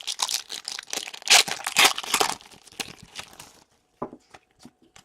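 A 2017-18 Upper Deck Series 1 hockey card pack being torn open, its wrapper crinkling in a run of crackling rustles over the first three and a half seconds, loudest in the middle, then a few light clicks.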